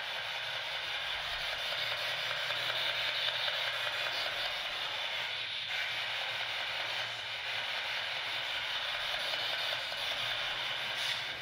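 Steady hiss of static, even and unbroken, with no distinct knocks or voices in it.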